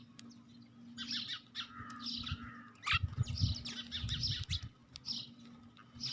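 Sparrows chirping in quick clusters of short, high notes, with a few low muffled thuds in between.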